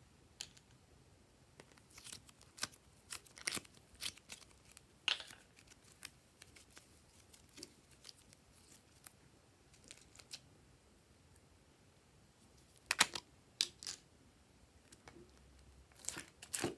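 Scattered sharp clicks and sticky crackles as slime is squeezed and peeled out of a small plastic container, and the plastic is handled. The clicks come in clusters, with the loudest near the end.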